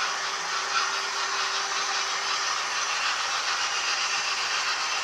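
OO gauge model train running on the layout's track: a steady, hissing rolling noise, with a faint motor hum over the first couple of seconds.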